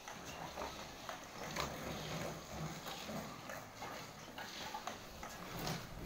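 Empty plastic drink bottles hung on an electric mobility scooter clacking and knocking irregularly as they swing and bump against each other and the scooter while it drives and turns on concrete, over a low rumble from the scooter.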